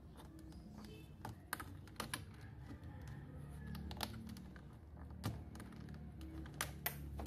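Plastic keycaps clicking and snapping as they are pried off a computer keyboard with a plastic ruler and fingers: scattered sharp clicks, irregularly spaced, some a second or more apart.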